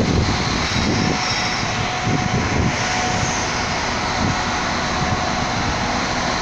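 Steady running of a Srbijavoz class 711 diesel multiple unit's underfloor engine as it stands at the platform, a constant drone with a faint steady whine.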